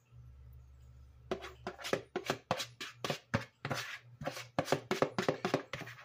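Metal spoon scraping batter out of a mixing bowl over a glass baking dish. It starts about a second in as a quick, irregular run of short scrapes, about four a second.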